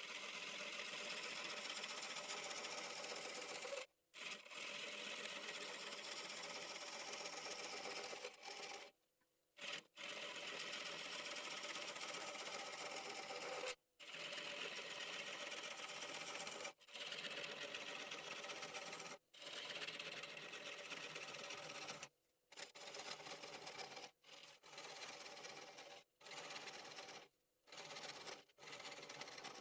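Wood lathe running while a tool works the spinning red oak bowl: a steady machine whir with a scraping hiss. It comes in stretches of a few seconds that cut off abruptly into silence, more and more often near the end.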